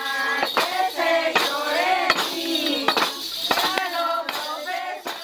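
Group of women singing together, with the jingle bells on their dance staffs jingling in a rough beat about every half second.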